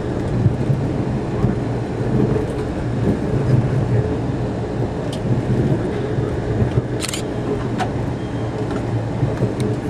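Steady low rumble of a passenger train rolling along the track, heard inside the coach, with a few light clicks and a brief hiss about seven seconds in.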